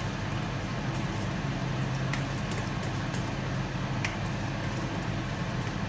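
A pot of jollof rice stock boiling steadily on the stove, with washed rice just poured in, bubbling over a low steady hum. There are two faint clicks, about two and four seconds in.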